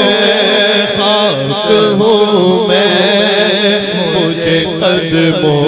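Devotional naat singing: a voice holding and ornamenting a long wavering melodic line of the verse.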